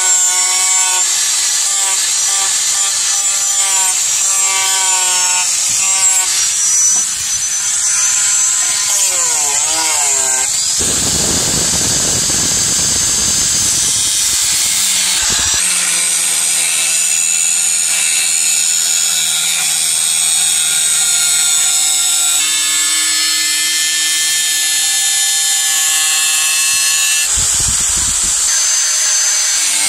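Electric angle grinder running at full speed and grinding a steel knife blade forged from chainsaw bar steel, its high whine wavering in pitch as the disc is pressed onto the metal. Around the middle the sound turns rougher and harsher for a few seconds before settling back into a steady whine.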